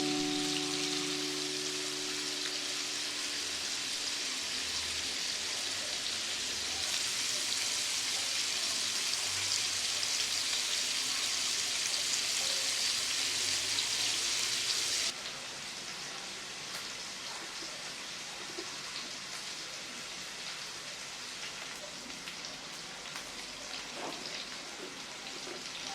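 Oil sizzling in a frying pan, a steady hiss that drops suddenly to a quieter sizzle about fifteen seconds in.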